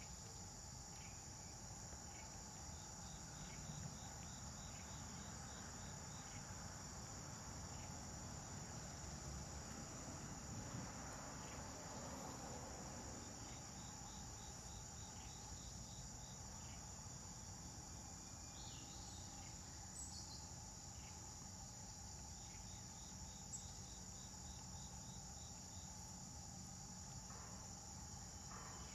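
Steady high-pitched drone of an insect chorus, with a short train of rapid ticking calls recurring about every ten seconds.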